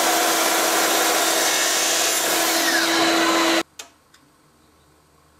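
Electric power saw running: a loud, steady noise with a constant hum that cuts off suddenly about three and a half seconds in, followed by two light clicks.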